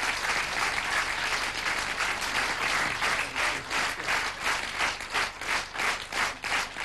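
Large audience applauding. About halfway through, the applause falls into rhythmic clapping in unison, about three claps a second.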